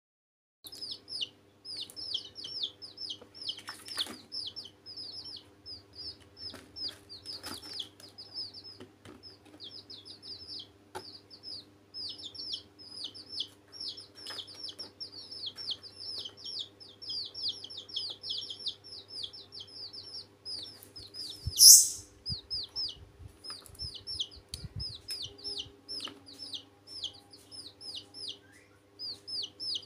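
Baby chicks peeping almost without pause: short, high, falling cheeps, several a second, over a faint steady hum. About 22 seconds in, one brief loud high-pitched noise stands out, followed by a few low thumps.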